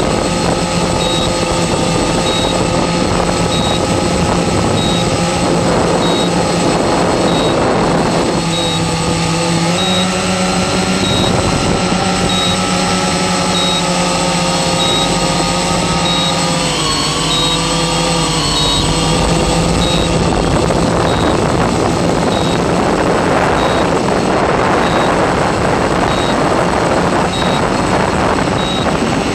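Multirotor octocopter's electric motors and propellers running in flight: a steady hum with a rushing noise under it, shifting in pitch as the throttle changes, most noticeably in the middle. A short high beep repeats about once a second.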